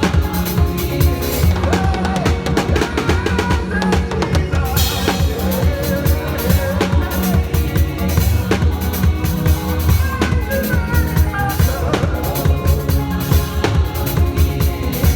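Live church praise music: a drum kit with bass drum, snare and rimshots keeps a steady beat under a loud bass and other pitched instruments and wavering melodic lines.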